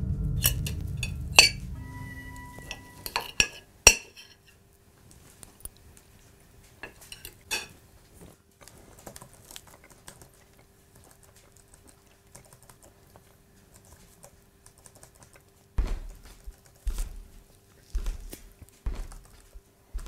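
Cutlery clinking against a plate a few times as background music fades out, then light tapping on a laptop keyboard over a faint steady hum, with a few dull knocks near the end.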